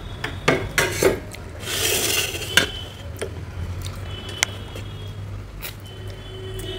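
Close-miked eating of ripe mangoes: wet mouth sounds of biting and sucking the fruit, with a short hissing slurp about two seconds in and scattered clicks and light knocks as mangoes are set down on steel plates.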